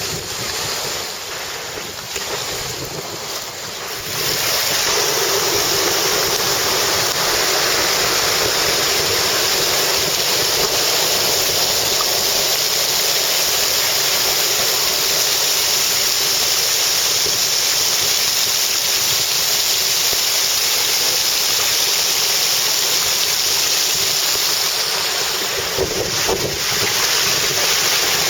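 Stormy sea and strong wind: a steady roar of surf and wind noise that gets louder about four seconds in and eases briefly near the end.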